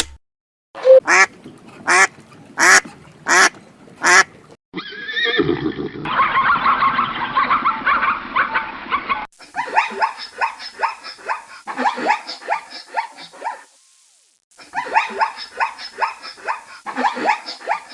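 A string of short animal-call clips spliced together. First come six loud calls about two-thirds of a second apart, then a dense chorus, then two runs of rapid quacking from a flock of ducks.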